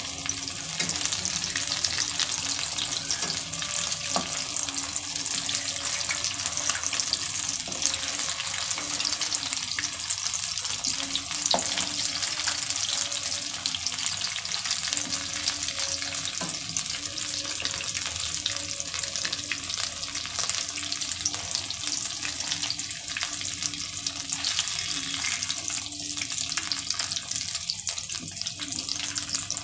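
Potato seekh kebabs frying in hot oil: a steady, dense sizzle and crackle.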